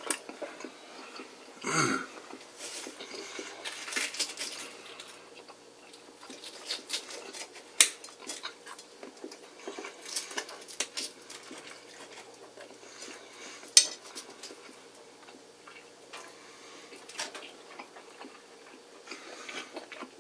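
Steak knife and fork scraping and clicking on a dinner plate while cutting a steak, with two sharper clinks of metal on the plate about a third and two-thirds of the way through.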